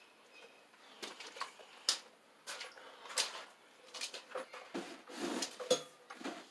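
Electrical cable being pulled by hand through holes drilled in wooden floor joists: irregular scraping and rustling as it drags through the wood, with scattered knocks.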